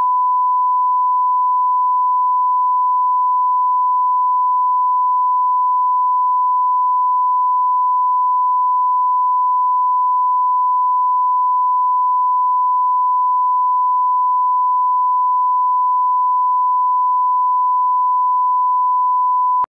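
Steady 1 kHz sine-wave reference tone, the line-up tone that goes with SMPTE color bars for setting audio levels. A single unwavering pitch that cuts off sharply at the end.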